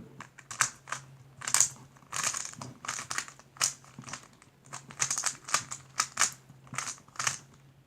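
3x3x3 Rubik's cube being turned quickly during a solve: a run of irregular plastic clacks and scrapes from its layers, a few a second and sometimes in quick clusters, over a faint steady low hum.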